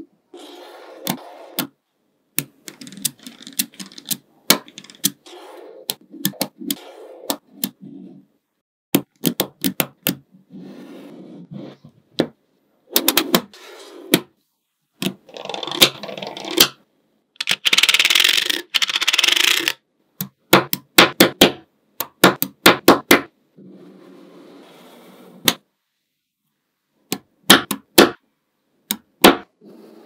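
Small neodymium magnet balls clicking sharply as they snap onto one another, between stretches of rattling and scraping as clusters of balls are shifted and slid on a hard table. The longest, loudest rattle comes a little past the middle.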